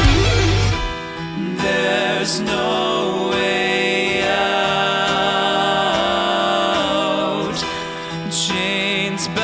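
Band music with guitars and sung vocals. A heavy low guitar-and-bass part drops out within the first second, leaving lighter guitar and voices.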